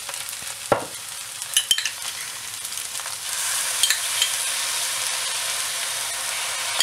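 Rice noodles and prawns sizzling in a hot wok as they are stir-fried with a metal slotted spatula, with a few sharp clicks and scrapes of the spatula against the wok. The sizzle gets louder about three seconds in.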